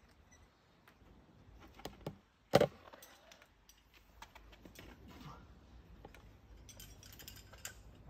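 Metal climbing gear clinking: carabiners and quickdraws jangling on a lead climber's harness, in scattered light clicks, with one sharp knock about two and a half seconds in.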